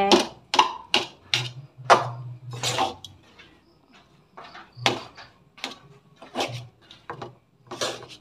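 Metal spatula scraping and knocking against a wok while stir-frying rice, in short irregular strokes with a brief lull about three seconds in.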